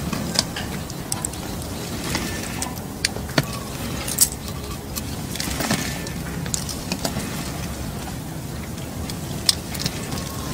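Earthquake shaking: a steady low noise with scattered sharp clicks and knocks as cracked concrete paving slabs shift and knock against each other.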